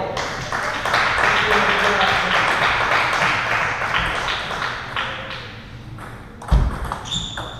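Table tennis ball hit on a serve near the end: sharp knocks, the loudest sounds here, and a short high ping as the celluloid ball bounces. Before that, background chatter of voices in the hall.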